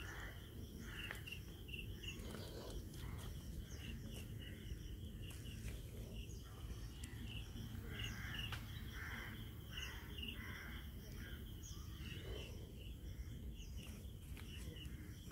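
Faint outdoor ambience: a steady run of short, evenly repeated high chirps from a bird or insect, over a low rumble.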